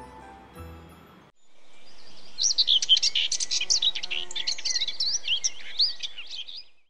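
Birdsong ambience: many small birds chirping and whistling in quick rising and falling notes, fading in after about a second and fading out at the end. Before it, the last notes of background music die away.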